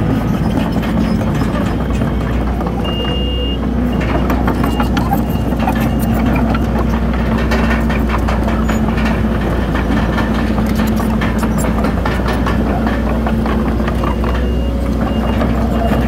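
Heavy diesel earthmoving machinery running steadily under load, with a clatter of metal throughout. A reversing alarm sounds about three seconds in, beeping in short pulses for a few seconds, and beeps again near the end.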